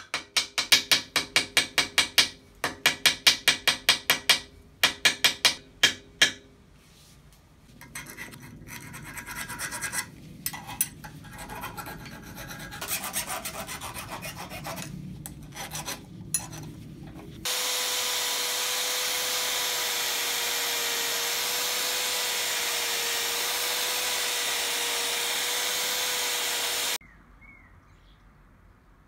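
Hand work on metal at a bench vise: for about six seconds, quick ringing strokes in runs of five or six, then several seconds of softer rubbing and scraping. About halfway through, a steady loud hiss with a faint wavering hum starts abruptly and cuts off suddenly about ten seconds later.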